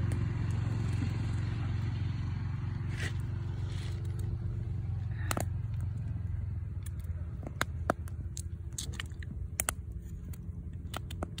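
Wood campfire crackling, with sharp pops coming more often in the second half, over a steady low rumble.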